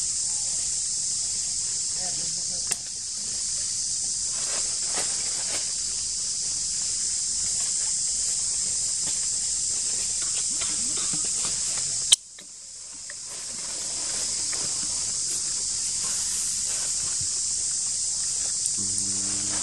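Steady high-pitched drone of insects in the forest. A sharp click comes a little before halfway, and a lower, voice-like sound starts near the end.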